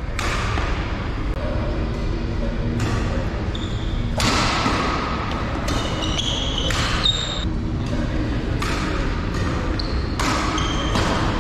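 Badminton rally: sharp racket strikes on the shuttlecock every second or two, with short high squeaks of shoes on the court floor between them. A steady low rumble runs underneath.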